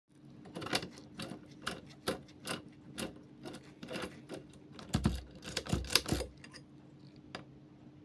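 Sharp metallic clicks and rattles, roughly two a second, of a quick-pick tool being worked in the keyway of a brass Titan K5 euro cylinder lock, with a denser run of louder clicks about five to six seconds in. A faint steady hum sits underneath.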